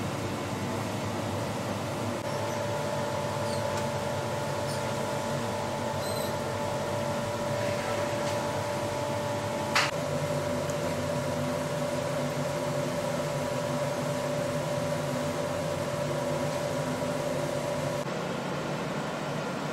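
A steady mechanical hum from a running machine, with a few steady tones in it. There is a single sharp click about halfway, and the hum changes slightly near the end.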